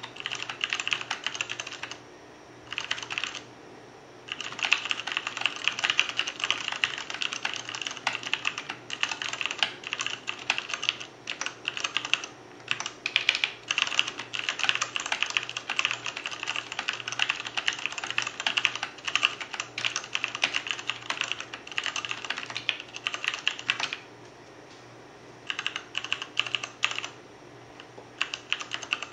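Typing on a Ducky Shine 2 mechanical keyboard with Cherry MX Clear switches and thin PBT keycaps: fast, steady runs of key clacks, broken by short pauses about two seconds in, around four seconds in and near the end.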